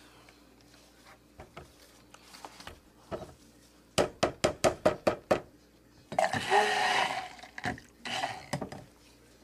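Stick blender knocked against the rim of a plastic bucket of soap batter, about eight quick sharp knocks in a second and a half to shake the batter off its head, followed by a harsher burst of noise lasting about a second.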